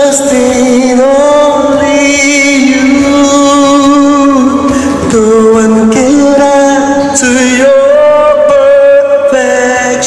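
A man singing a slow worship song, holding long, sustained notes.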